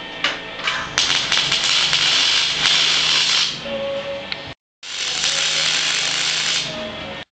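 Wire-feed (MIG) welder arc crackling and hissing while welding aluminium, in two runs of a few seconds each that are cut off abruptly between them, over a steady low hum.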